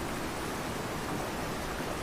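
Fast-flowing river rushing steadily, an even roar of turbulent water.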